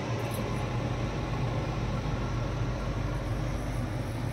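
Solahart Atmos Air 230 heat pump water heater running just after start-up. Its fan and compressor give a steady low hum with even air noise.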